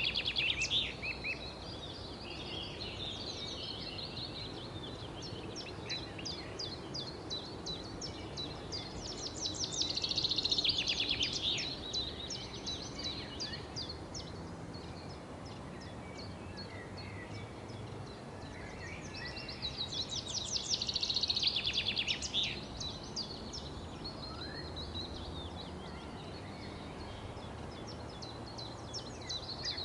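Small birds chirping, with loud flurries of fast, high chirps about every ten seconds and softer scattered chirps in between, over a steady low background rumble.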